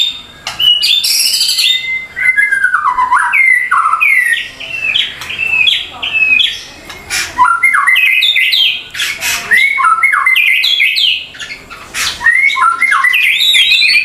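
White-rumped shama (murai batu) singing a long, varied song of rising and falling whistled phrases with only brief pauses.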